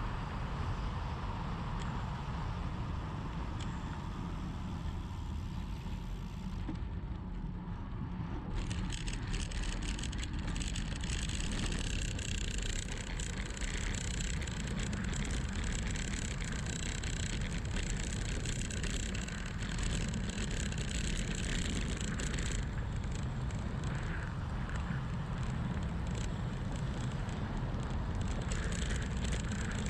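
Wind buffeting the action camera's microphone, with tyre noise on asphalt, as a bicycle descends at speed. A low rumble runs throughout, and a brighter hiss grows about eight seconds in and eases off again about twenty-two seconds in.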